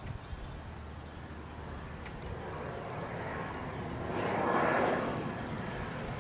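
A passing vehicle: a rushing noise swells for a few seconds, peaks, then eases off.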